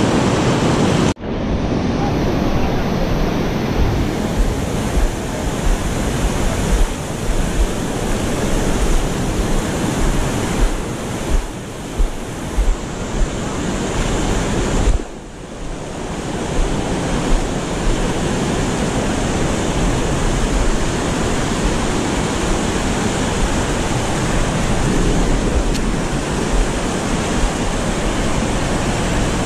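Steady rush of river rapids, white water pouring over rock shoals, with wind buffeting the microphone.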